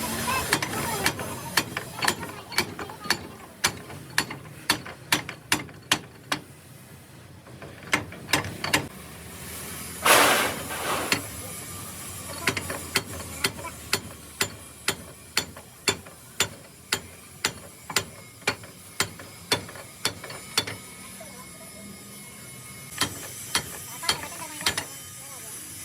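Regular sharp metallic clicks, about two a second, from hand tool work on a hydraulic jack. There is a brief hiss about ten seconds in and a short pause near the end before a final run of clicks.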